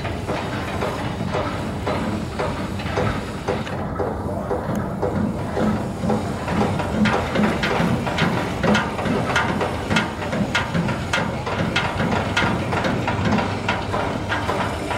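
A boat's diesel engine running steadily under a low hum, with a fast, uneven knocking that grows stronger about six seconds in.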